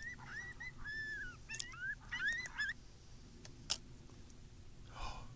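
Coyote yipping: a quick run of short, high yips, each rising and falling, over the first few seconds, then a couple of faint clicks.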